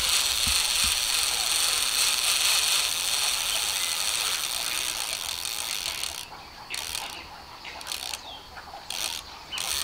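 Spinning fishing reel's drag clicking in a rapid, continuous rattle as a hooked pirarara pulls line out against it. Near the end it breaks off and restarts several times.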